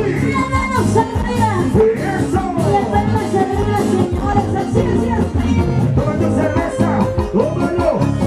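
Loud dance music with singing and a steady beat.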